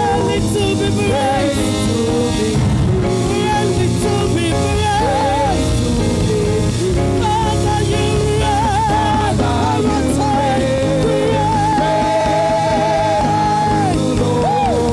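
Live gospel worship music: a band playing with a voice carrying a wavering melody line over it.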